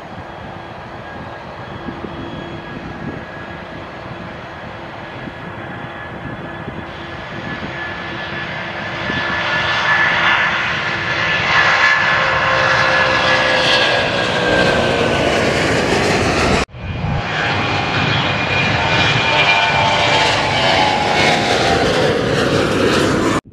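Jet airliners taking off at full thrust. A twin-engine Airbus A330's engine noise grows louder as it rolls and climbs away, its whine sliding down in pitch as it passes. After an abrupt cut, a Boeing 737 climbing out makes the same loud, falling jet sound.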